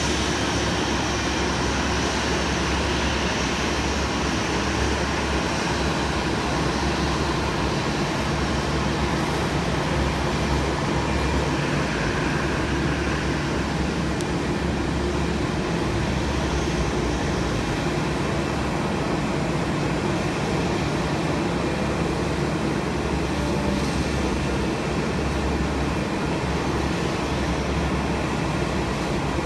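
Jet airliner engines running with a steady, unbroken noise and low hum.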